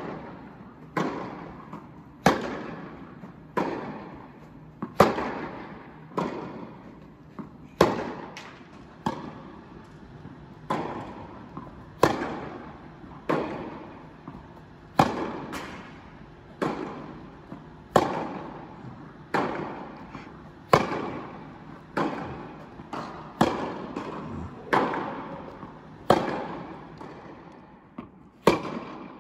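Tennis ball rally: sharp racket strikes and ball bounces, about one every second or so with some close pairs, each ringing out in the echo of an indoor tennis hall.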